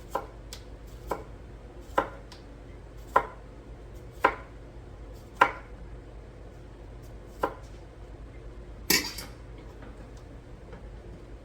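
Knife slicing through lemon cucumbers onto a cutting board, one sharp chop about every second, with a louder, longer knock about nine seconds in.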